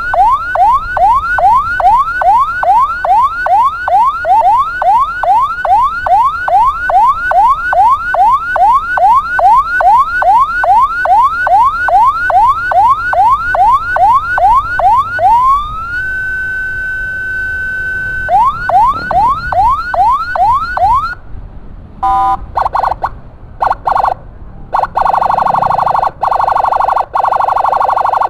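Ambulance electronic siren in yelp mode: fast rising sweeps, two or three a second, then a brief steady held tone about halfway through, and more yelps. About three-quarters in it switches to a harsh buzzing horn tone, sounded in short choppy blasts and then held.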